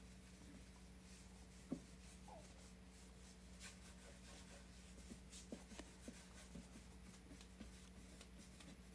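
Near silence: faint scrubbing of a paintbrush laying oil paint across a painting panel, with a few soft ticks and a low steady hum.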